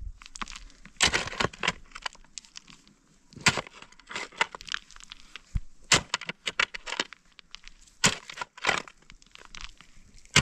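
Long-handled digging hoes chopping into stony soil. The blades strike and scrape through earth and stones in short, sharp, irregular strokes.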